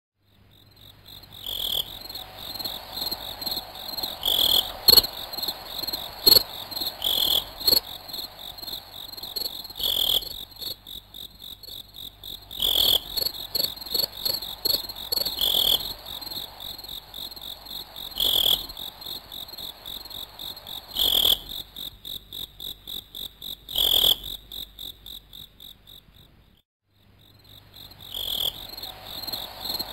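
Crickets chirping in a rapid, high trill, with a stronger pulse about every three seconds. It drops out briefly near the end and then comes back.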